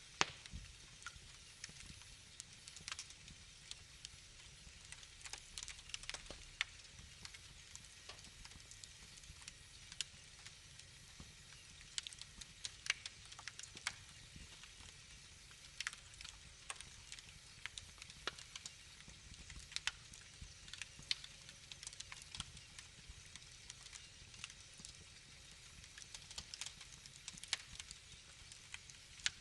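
Wood fire in a fireplace crackling, with frequent irregular sharp pops over a low steady hiss; the loudest pop comes right at the start.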